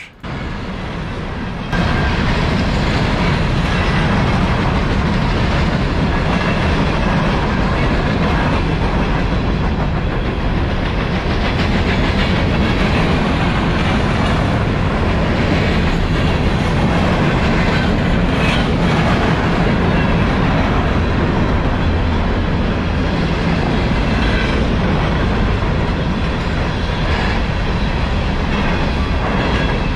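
Empty coal hopper cars of a freight train rolling past at close range: a steady sound of steel wheels on the rails, getting louder about two seconds in and then holding steady.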